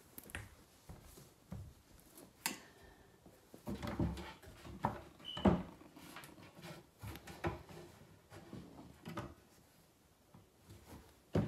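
Irregular knocks, taps and clatter of wooden flat-pack furniture panels being handled and fitted together by hand, loudest about five and a half seconds in.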